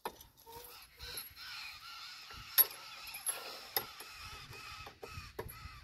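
Hand-operated lever-and-chain fence wire stretcher being worked to tension fence wire: chain links rattling and metal clinking, with several sharp clicks, the loudest about two and a half seconds in.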